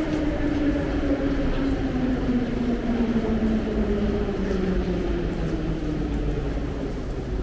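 A metro train's electric motor whine, falling steadily in pitch as the train slows and fading near the end, over a steady low rumble.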